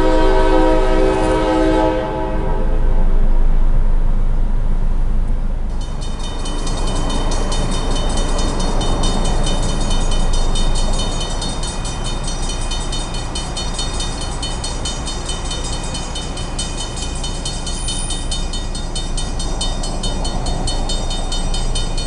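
CSX locomotive air horn sounding a chord that stops about two seconds in. A few seconds later a railroad crossing warning bell starts ringing in a fast, even repeat and keeps ringing as the gates come down, over a steady low rumble.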